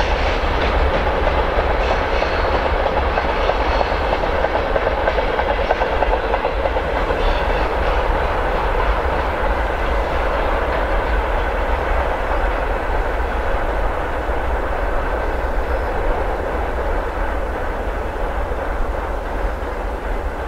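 Wagons of a container freight train rolling away on the rails, the wheel noise slowly fading and losing its higher tones as the end of the train recedes.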